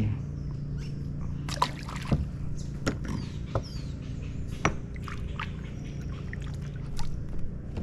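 Light water splashes, drips and knocks from handling fish and line in a wooden canoe, a scattering of separate sharp strokes over a steady low hum.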